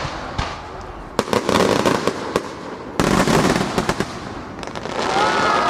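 Aerial fireworks shells bursting in a rapid-fire starmine barrage, with dense crackling between blasts and a heavy burst about three seconds in. Onlookers' voices come up near the end.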